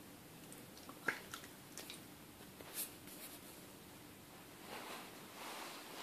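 Faint scattered clicks and rustles as a dog mouths playfully at a kitten on a shag rug, with one sharper click about a second in and a soft rustling near the end.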